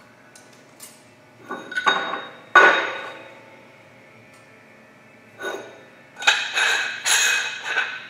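Parts of a die-cast aluminum compressed-air pipe fitting being handled and set down on a wooden workbench: a few knocks and clinks, the loudest a sharp knock about two and a half seconds in. In the last two and a half seconds comes a run of clattering metallic clinks with a brief ringing.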